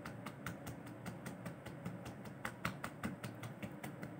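Fingertips rapidly patting the skin of the neck in a tapping massage: a quick run of light taps, about six a second.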